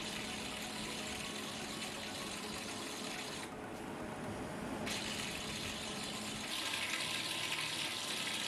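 A pulse EDM rig running: a steady rushing, like running water, from the dielectric fluid flushing at the work, with a faint steady hum that drops out about six and a half seconds in.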